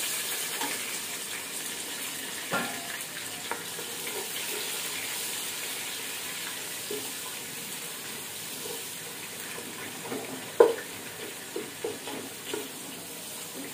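Sliced onions sizzling in hot oil in a nonstick pan, the sizzle easing off slowly. A wooden spatula stirs them with a few knocks against the pan, the loudest about ten seconds in.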